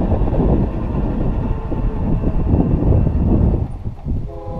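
A loud, uneven low rumble, then near the end an approaching GE locomotive's air horn starts to sound: a chord of several steady notes held for the crossing.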